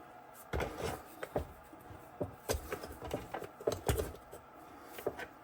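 Irregular light knocks and clicks of hard parts being handled, as a wagon wheel hub is fitted back into its rim.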